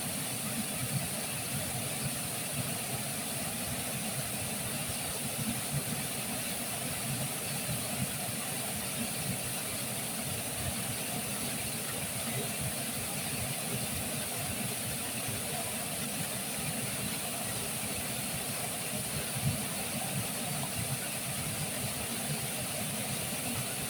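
Walanae River water rushing steadily, an even, unbroken wash of water noise.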